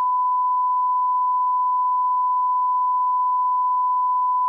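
Emergency alert attention tone: a single steady electronic tone near 1 kHz, loud and unbroken, signalling that an alert message is about to be read.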